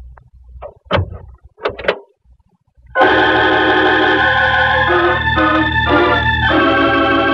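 A few short clicks and knocks as the icebox door is opened, then, about three seconds in, a loud organ music sting: held chords with a shifting middle line, a dramatic radio-drama cue marking the reveal.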